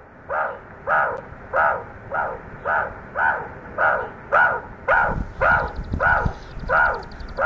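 An animal calling over and over, one harsh rising-and-falling call about every 0.6 seconds at an even pace.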